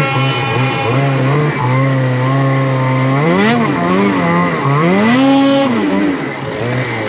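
Snowmobile engine at high revs while the sled ploughs through deep powder. It holds steady for about three seconds, then revs rise and fall a few times as the throttle is worked.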